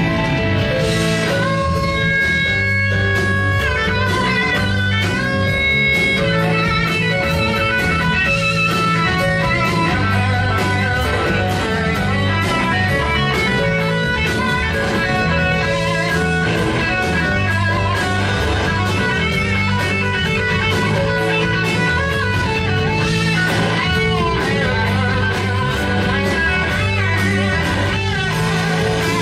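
Live blues-rock band playing an instrumental passage: electric guitar lead with held, wavering notes over bass guitar and drums.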